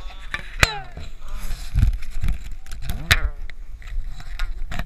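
Wordless shouts and grunts from an angler fighting a hooked bass to the bank, over a steady low wind rumble on the microphone, with a few sharp knocks of handling.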